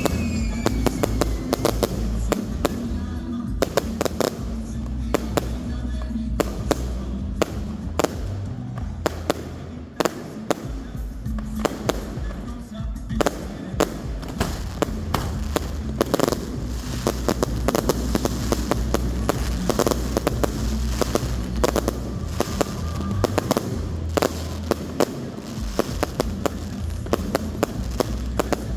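Fireworks display: a dense, irregular stream of sharp bangs and crackling reports, with music playing underneath.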